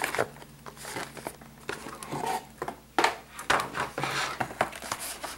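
Cardboard motherboard packaging being handled: rustling and scraping of the box and its insert, with a few light taps and knocks, the sharpest about three seconds in.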